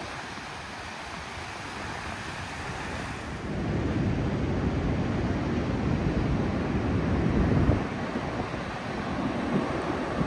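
Ocean surf washing on a beach, with wind on the microphone. The rushing grows louder and deeper about three and a half seconds in.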